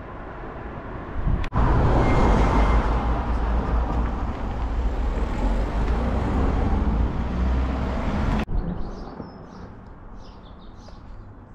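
Road traffic, a car passing close by: a loud rush of engine and tyre noise that starts suddenly about a second and a half in and breaks off about eight and a half seconds in. After it, faint bird chirps.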